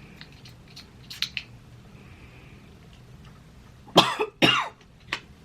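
A woman coughs twice in quick succession about four seconds in. A few faint clicks come before.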